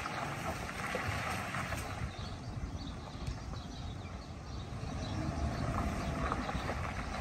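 Pickup truck driving slowly at a distance, a low, steady rumble of engine and tyres without sharp events.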